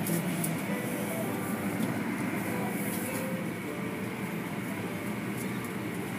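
Automatic tunnel car wash heard from inside the car: a steady noise of water spray and cloth wash strips rubbing and slapping over the glass and body, with a machinery hum underneath.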